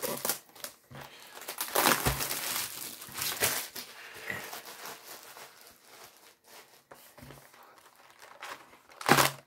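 Plastic shrink-wrap on a Magic: The Gathering Core Set 2021 booster box crinkling and tearing as it is pulled off, in irregular rustles and short rips.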